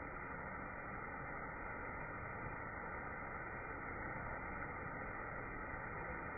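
Steady, muffled rush of falling water from a waterfall, even throughout with no distinct events.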